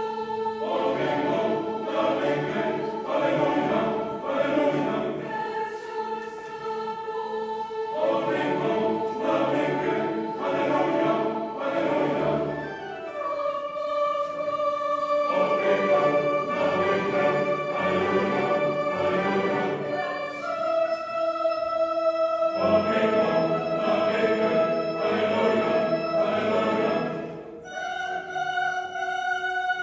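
Parish church choir singing an Alleluia: sustained choral phrases with long held notes, and short breaks between the phrases.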